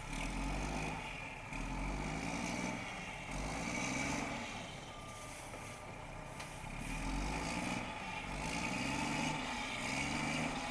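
Garbage truck's diesel engine revving over and over, each rev rising and falling in pitch, with a lull midway. The truck is stuck in deep snow and trying to power free.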